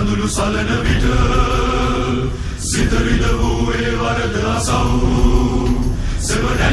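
Choral chanting on a film soundtrack: a choir of voices holding long chanted notes over music, with a brief dip just before the middle.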